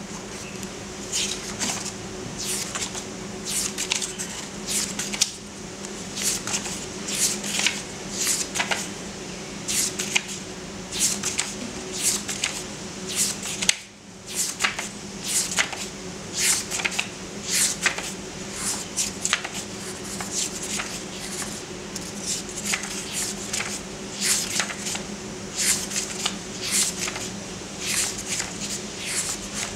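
Paper pages of a book being turned and flicked by hand: bulky uncoated paper with rough, ruffled edges, rustling in short, irregular strokes one after another, over a steady low hum.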